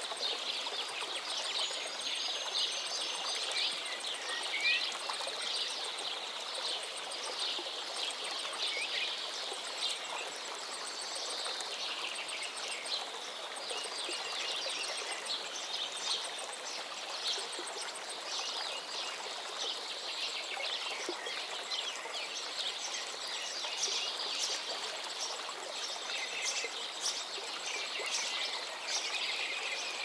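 Stream water flowing and gurgling steadily, with scattered bird chirps and a few short whistled calls, one of them falling in pitch near the end.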